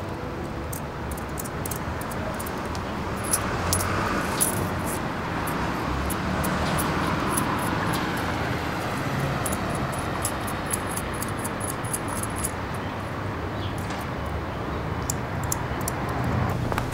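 Steady street and traffic noise with scattered light clicks.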